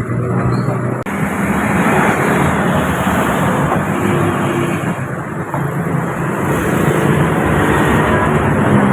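Road traffic noise: motor vehicles running close by, a steady low engine drone under dense road noise.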